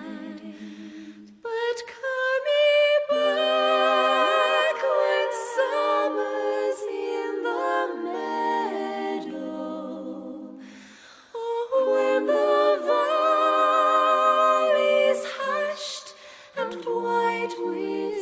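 Music: a slow melody with vibrato, sung or played in two long phrases with a short break about halfway.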